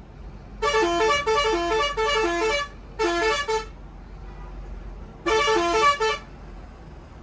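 A vehicle's multi-tone musical horn sounding quick runs of stepped notes in three bursts: a long one of about two seconds, a short one, then another short one about five seconds in. Underneath is a low, steady road rumble.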